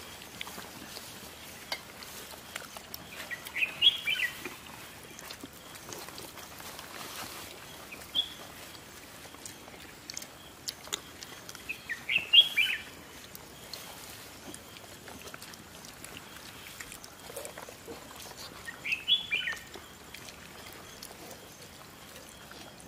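A bird calling outdoors: a quick cluster of high, falling chirps, repeated three times several seconds apart, with one short chirp in between. Faint scattered clicks sit underneath.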